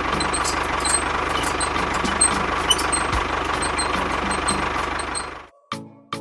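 Engine-like machine noise running steadily with a fast low rumble and scattered clicks, cutting off abruptly about five and a half seconds in.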